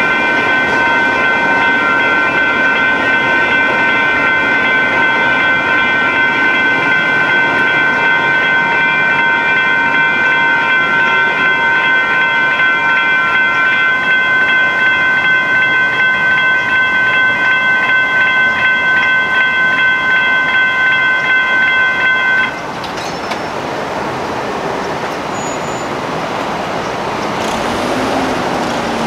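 Railroad crossing warning bell ringing in rapid, steady strokes over the rumble of a train passing through the crossing; the bell cuts off suddenly about 22 seconds in, leaving road traffic noise.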